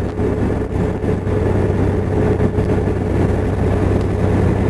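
Small harbour sampan's engine running steadily: a constant low drone with a faint steady whine above it.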